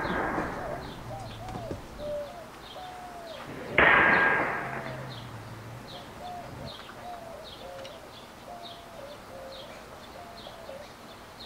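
Steel sword blow on an iron samurai helmet: the ringing of the strike fades at the start, then about four seconds in a second loud metal clang rings out and dies away over about a second. Small birds chirp over and over in the background.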